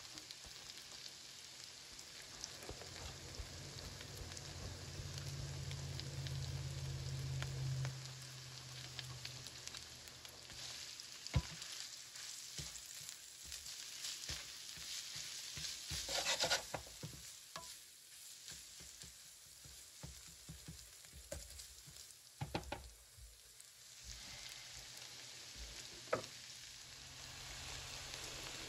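Food sizzling in a frying pan, with scattered clicks, knocks and scrapes of a utensil being stirred against the pan; the sharpest click comes about eleven seconds in, and a low hum runs through the first third.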